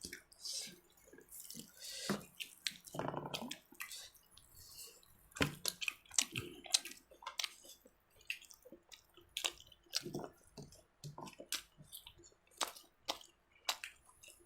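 Close-up eating sounds: chewing with irregular wet mouth clicks and smacks.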